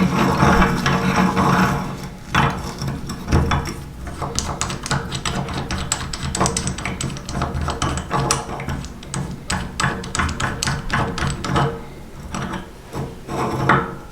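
Meat grinder crushing crunchy food, a dense run of irregular crackles and snaps over a steady low hum from the machine.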